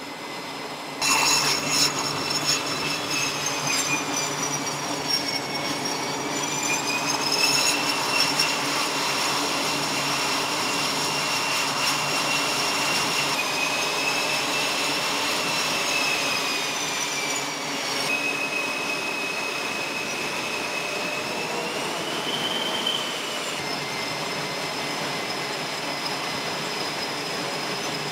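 Aircraft turbine engines running on a carrier flight deck: several high-pitched whines that drift slowly up and down over a steady rumble. The sound jumps louder about a second in, and the pitch of the whine shifts abruptly a few times.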